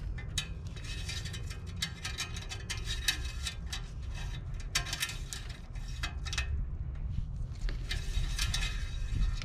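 Engine oil dipstick being slid back down its metal tube after wiping, with clusters of light metallic clicks and scrapes on and off.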